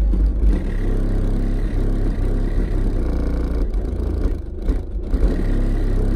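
Deep, loud bass from a Digital Designs 9518 subwoofer powered by an Audiopipe APCL 1800.1 amplifier, played inside a car and heard from just outside its rear hatch.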